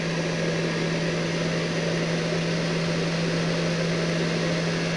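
Variable-speed hair dryer running steadily, a constant motor hum under the rush of air it blows through a small air tunnel.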